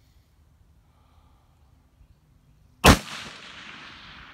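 A single shot from a bolt-action precision rifle fired prone, a sharp loud report about three seconds in followed by a long fading echo.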